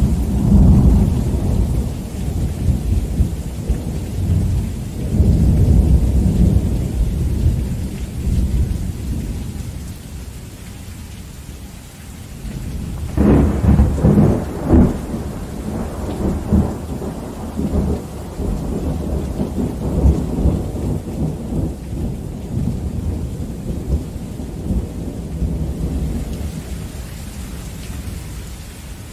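Heavy rain falling steadily through rolling thunder. A long low rumble in the opening seconds swells again and dies down by about ten seconds in, then a sharper thunderclap about thirteen seconds in breaks into several strikes and rumbles away.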